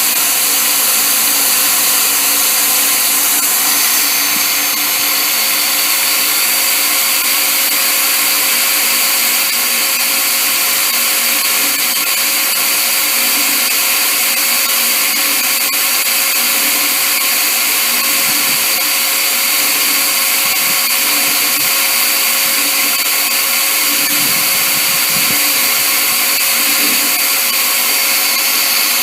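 Electric drill running at a steady speed, drilling into a snapped bolt stud.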